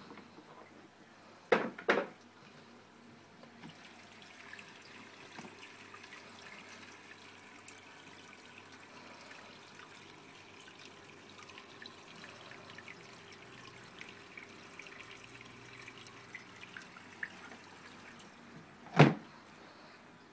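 Water trickling and dripping through a reef aquarium's refugium and sump plumbing, a quiet steady flow with many small drip ticks. Two sharp knocks about a second and a half in, and a louder knock near the end.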